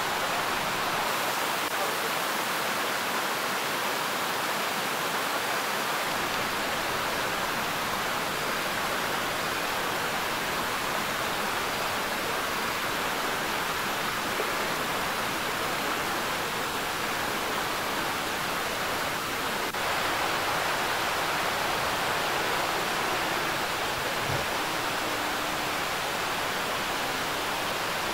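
Steady rush of a waterfall and stream: an even hiss of falling, running water.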